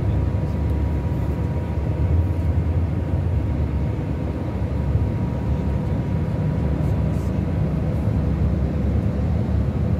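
Mercedes-Benz O-500RSD coach's diesel engine running steadily: a constant low rumble with a faint steady high whine over it.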